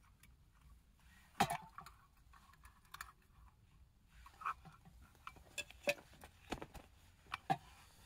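Light, scattered clicks and knocks of camping gear being handled: a small gas canister being fitted to a portable camping stove on a wooden board, and plastic bottles and metal cups being picked up and set down. One sharper knock comes about a second and a half in, and a run of small clicks follows in the second half.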